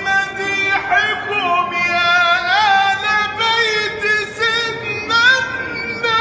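A solo man's voice singing Arabic religious praise (madih), drawing out long notes with wavering, melismatic ornaments.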